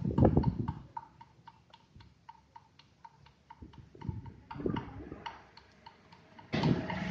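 A rapid, even ticking, about four ticks a second, after a short burst of low rumbling noise at the start; broad background noise comes back near the end.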